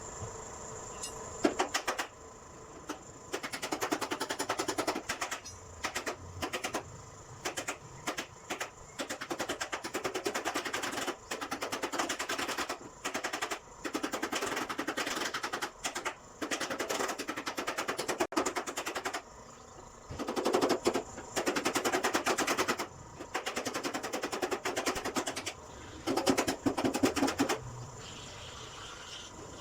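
Rapid mechanical rattling in repeated bursts of a half second to a few seconds, each a fast run of clicks, with short pauses between bursts.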